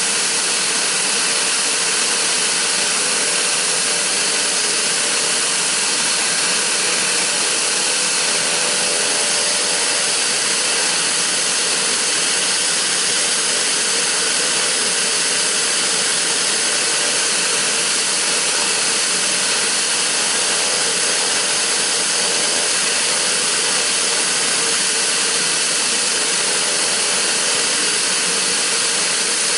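Pilatus PC-12's single Pratt & Whitney PT6A turboprop engine running steadily on the ground: an even, loud turbine rush and hiss with faint steady whining tones, no change in power.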